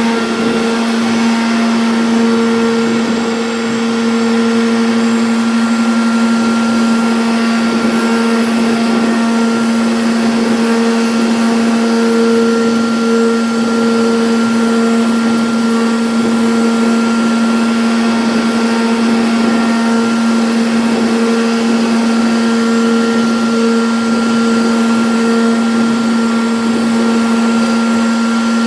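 CNC router spindle running steadily as it carves, a constant whine over an even hiss.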